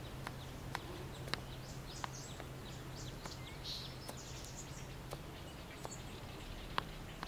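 Quiet room ambience with a low steady hum, scattered faint ticks and a few faint bird chirps.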